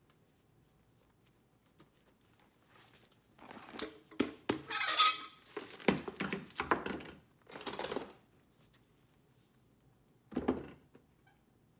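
Knocks, scrapes and clinks of a cowboy boot and its leather midsole being handled and set on a metal shoe last. They bunch together between about three and eight seconds in, with one more knock near the end.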